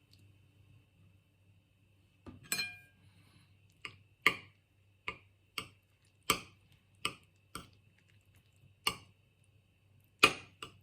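About a dozen sharp clinks and taps of tableware, irregularly spaced, one ringing briefly about two and a half seconds in, over a low steady hum.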